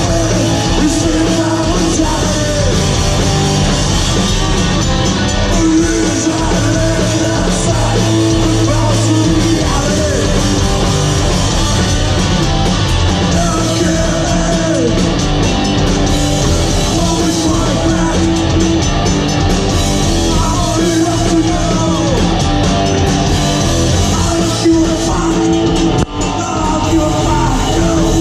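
Live punk-metal trio playing loud: distorted electric guitar, bass and drums under shouted vocals, heard from the audience in a club.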